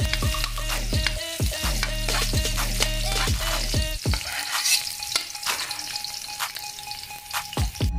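Sliced onion, garlic and ginger sizzling in hot oil in a metal wok, with a metal spatula clicking and scraping against the pan as they are stirred. Background music plays underneath, changing about halfway through.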